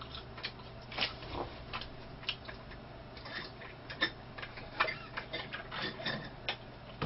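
Close-up eating sounds: a churro being chewed and a drink sipped through a straw, heard as a run of irregular small clicks and crunches over a low steady hum.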